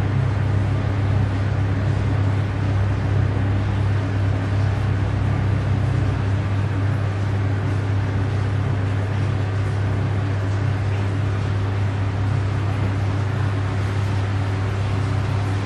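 Panasonic FV-25TGU2 10-inch ceiling exhaust fan with a six-blade impeller running at speed. It gives a steady low hum under an even rush of air, with no change in pitch or level.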